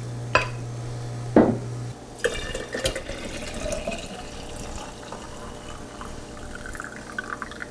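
Two light clicks, then liquid pouring into a glass canning jar, its pitch rising as the jar fills.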